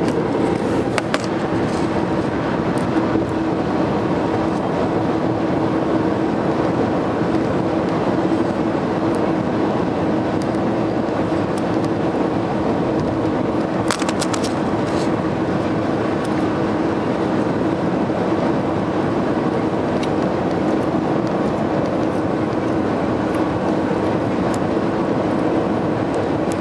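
Steady road noise inside a car cruising at highway speed: tyre and wind noise with a steady low hum. A few light clicks come about halfway through.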